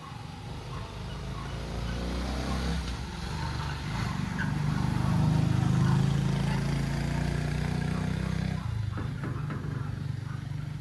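Topens AD8S dual swing gate opener's electric actuator arms running as both gates swing closed: a steady motor hum that grows louder midway and stops suddenly about eight and a half seconds in as the gates reach their adjusted closed position.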